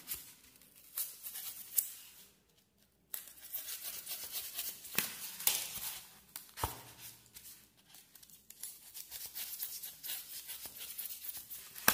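Utility knife blade cutting through an expanded polystyrene (styrofoam) sheet in short, scratchy, squeaky strokes, with a brief pause about two seconds in and a sharp click about two-thirds of the way through.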